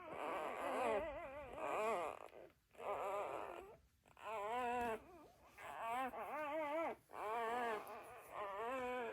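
Labrador whining: a string of drawn-out, wavering whimpers, each about a second long, one after another with short breaks.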